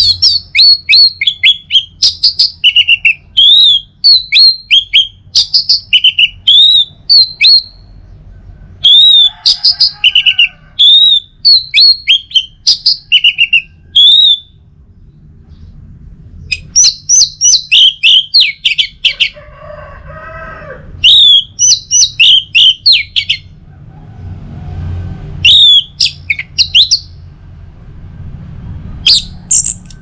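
Orange-headed thrush singing loudly: bouts of rapid, varied whistled notes that slide up and down, in about five runs broken by short pauses.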